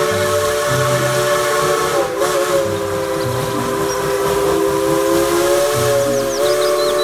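Steam locomotive's whistle blowing one long continuous blast of several notes together, its pitch wavering briefly about two seconds in, over a hiss of steam.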